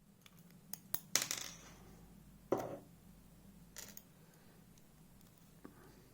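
Small metal clicks and clinks of lock driver pins being taken out of a 7-pin Goal Z cylinder and dropped onto a hard surface, a few light ticks and two sharper clinks, the loudest about a second in.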